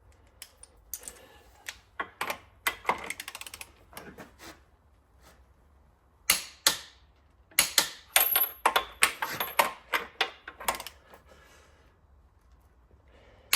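Click-type torque wrench ratcheting in quick runs of clicks as bolts are pulled up to their final torque of 140. Louder, sharper metallic clicks and knocks follow in the second half.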